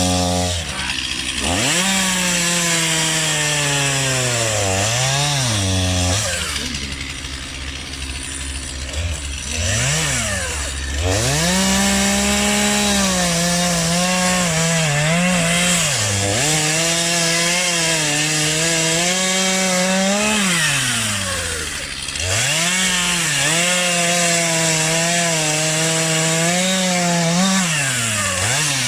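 Stihl two-stroke chainsaw cutting wood at high revs, its engine speed dipping sharply several times as the throttle is eased or the chain bogs in the cut, with a quieter, lower-revving stretch about a third of the way in before it picks up again.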